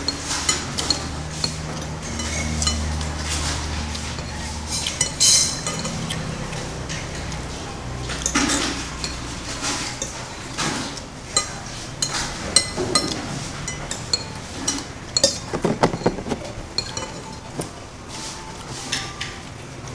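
Metal spoon clinking and scraping against a ceramic plate while fried rice is eaten: scattered sharp clinks, irregular and unhurried. A low steady hum sits under the first half.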